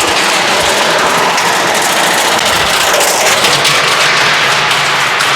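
Stripped Haier washing machine running hard, with its stainless steel tub on welded car suspension springs shaking, banging and rattling. The result is a loud, continuous clatter of metal knocks over the motor's hum.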